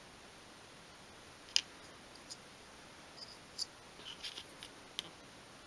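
Small thin wooden drawer pieces and a glue-spreading stick being handled, giving faint scattered clicks and light taps. One sharper click comes about one and a half seconds in, and a cluster of lighter ones comes a little after four seconds.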